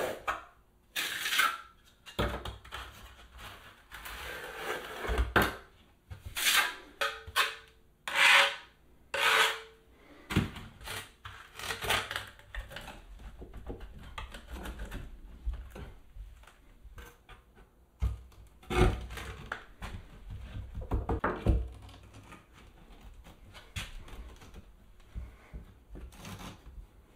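Small tile pieces being set in thinset mortar inside a shower niche: irregular scraping and knocking as mortar is spread with a trowel and the tiles are pushed and slid into place, coming in bunches separated by quieter stretches.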